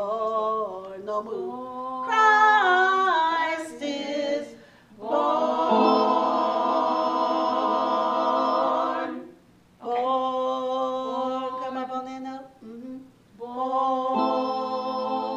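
Choir singing a cappella in rehearsal, with phrases broken by short pauses and a long chord held from about five to nine seconds in.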